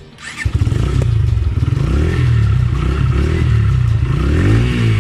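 Motorcycle engine running on the move, its pitch rising and falling with the throttle; it comes in about half a second in.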